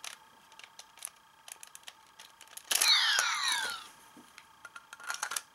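Small plastic clicks and rattles of a toy belt's parts being handled, with a short electronic sound effect from the DX Double Driver about three seconds in: sweeping tones, one falling steeply.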